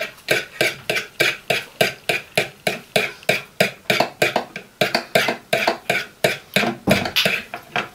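Metal fork whisking beaten eggs in a plastic mixing bowl, a steady rhythm of about four quick strokes a second.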